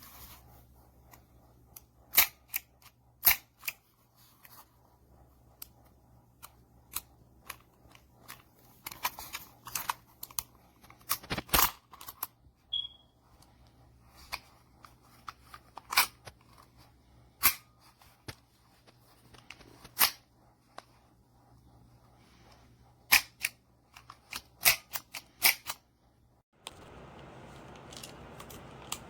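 Sharp, irregularly spaced clicks and snaps from a CO2 BB revolver, a few much louder than the rest, with a steady hiss rising near the end.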